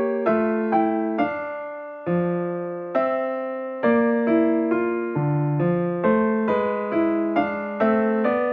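Background music: an electric piano playing a gentle run of struck chords and notes, roughly two a second, each fading before the next.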